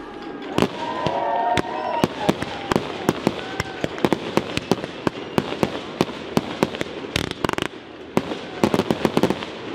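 Consumer fireworks going off: a rapid, irregular string of sharp bangs as shells launch and burst, thickest near the end, over a steady crackle.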